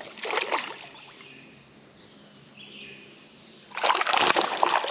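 A hooked small bass splashing and thrashing at the water's surface as it fights a cane-pole line: a short splash at the start, then a louder burst of splashing lasting about a second, about four seconds in.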